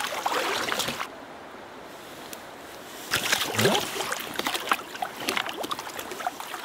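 Water splashing and sloshing as a trout is released from a landing net into a flowing river, over the steady rush of the current. The splashing is busiest from about three seconds in.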